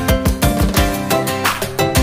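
Background music with a steady, upbeat rhythm.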